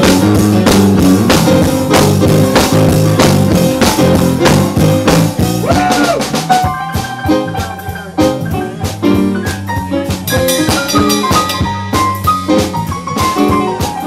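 A live band playing instrumental music: drum kit, electric bass guitar and electric keyboard. About halfway through the drums grow lighter and the keyboard chords come forward.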